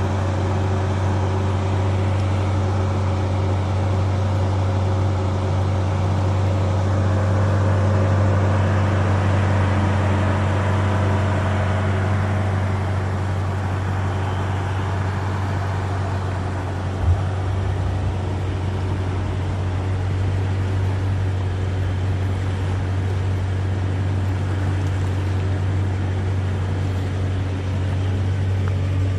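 An engine running steadily at low speed, a continuous low hum with little change, with one short click about two-thirds of the way through.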